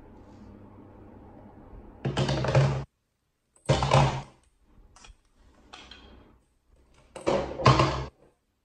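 A plastic ball dropping through a LeapFrog Peek-A-Shoe octopus toy, knocking down its hollow plastic insides in several short bursts, the last one a double.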